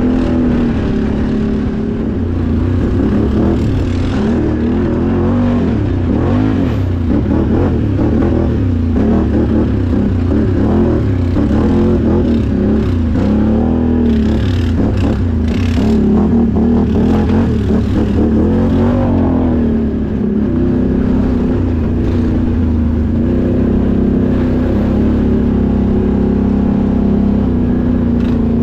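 Can-Am Outlander XMR 1000R ATV's Rotax V-twin engine running under throttle as it is ridden, its pitch rising and falling over and over. A few sharp knocks come about halfway through.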